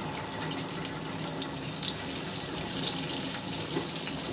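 Momos deep-frying in hot refined oil in a pan: a steady sizzle with many fine crackles as more dumplings go into the oil, the sizzle growing a little louder about halfway through.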